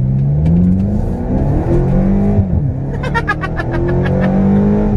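BMW X5M's S63 4.4-litre twin-turbo V8 at full throttle, heard from inside the cabin. The revs climb, drop with an upshift about halfway through, then climb again. The intake runs aftermarket BMC air filters with the charcoal filters removed. A man laughs briefly about three seconds in.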